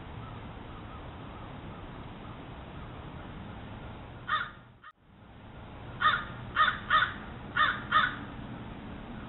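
Red fox barking: one short, raspy bark, then after a pause five more in quick succession, over a steady hiss.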